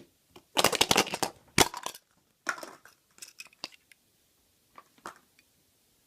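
Surprise egg being unwrapped and opened: the wrapper crinkling and crunching in a few short bursts with pauses between.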